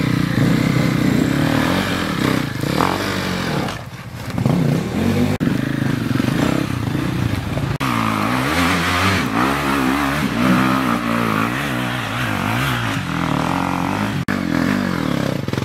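Off-road dirt bike engines revving up and down, again and again, under load on a steep rocky climb, with clattering and scraping from the bikes on the rocks.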